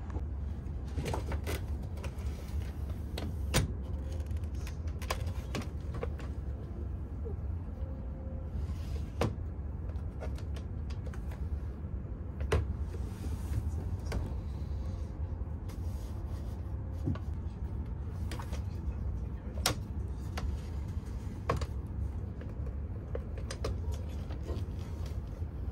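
Fold-out tray table of a Shinkansen Gran Class seat being pulled from its armrest compartment, unfolded and slid back in: a series of sharp plastic clicks and knocks. Under them runs the steady low rumble of the moving train.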